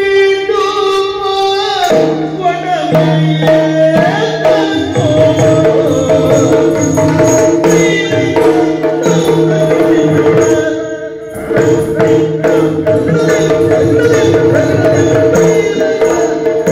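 Yakshagana music: a male singer's voice over a steady drone, with a barrel drum (maddale) beating throughout. The music drops back briefly around eleven seconds in, then picks up again.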